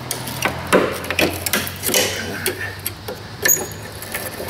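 Steel pick clicking and scraping against a corroded, jammed-on brake hose retaining clip at its bracket as it is pried loose: a run of small irregular metal clicks, with a sharper clink about three and a half seconds in.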